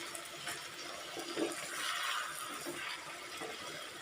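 Chicken and vegetables cooking in a pan with a steady sizzling hiss, a little louder about two seconds in.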